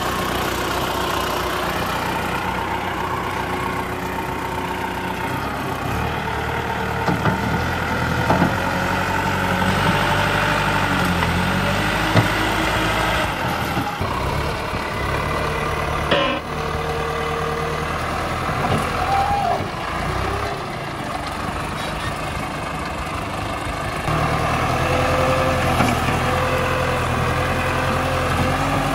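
Diesel farm tractor with a front loader running steadily, its engine note stepping up and down as the driver works the bucket into a pile of dirt. A single sharp knock about halfway through.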